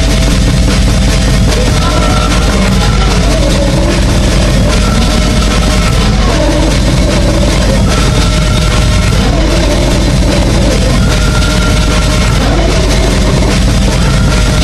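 Loud, dense electronic goregrind (cybergrind) music with drums, and a short pitched figure that comes back about every three seconds.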